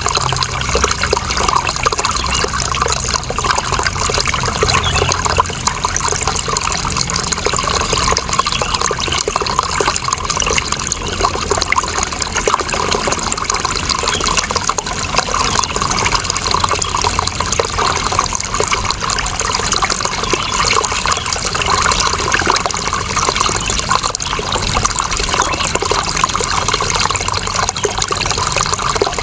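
Water running and trickling steadily and fairly loudly, with no breaks.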